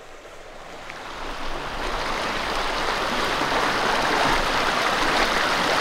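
Rain-swollen creek rushing fast and high after hours of heavy rain, growing louder over the first two or three seconds as it is approached, then a steady rush.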